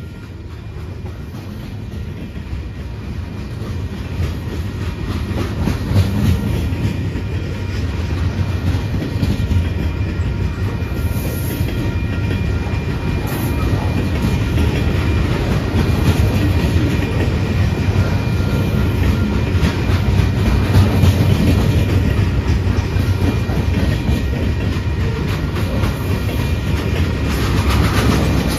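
Freight train cars rolling past close by: a steady rumble of steel wheels on rail with the clickety-clack of wheels over rail joints, getting louder over the first several seconds and then holding steady.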